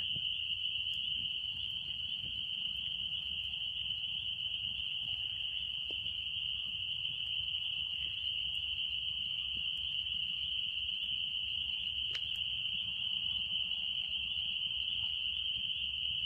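A steady, high-pitched chorus of small calling creatures, dense and unbroken, over a low rumble of wind on the microphone.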